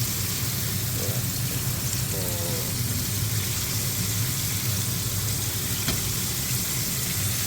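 Chicken frying in a pan, a steady sizzle, over a low steady hum.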